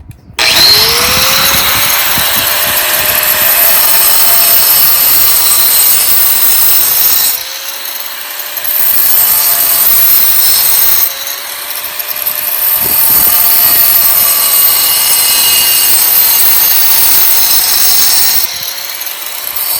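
Angle grinder spinning up and cutting grooves into a pool's pebble-finish plaster surface: a steady motor whine under loud gritty grinding, which eases three times and picks back up.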